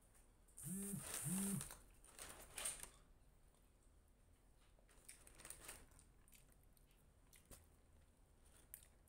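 Paper sandwich wrapper rustling and crinkling close to the microphone, with eating sounds as bites are taken. About a second in there are two short hummed "mm" sounds, and a few light clicks come near the end.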